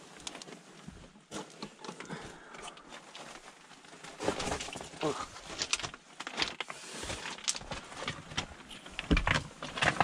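Footsteps scrambling over loose rock rubble: stones shifting and clattering underfoot, with irregular scrapes and knocks, louder from about four seconds in.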